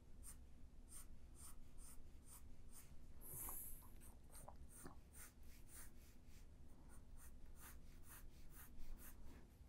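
Pencil scratching on paper in short, faint strokes, a few a second, with one longer stroke about three and a half seconds in, as a line of the drawing is darkened.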